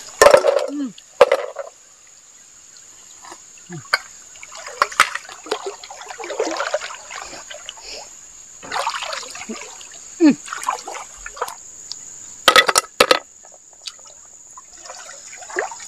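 Shallow river water splashing and sloshing as hands feel through the riverbed for freshwater mussels, with a few louder sudden sounds just after the start and again about twelve and a half seconds in.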